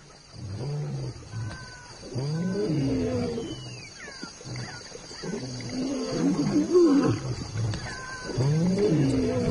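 Lions growling in several deep, rising-and-falling bouts of about a second each, the loudest around seven seconds in.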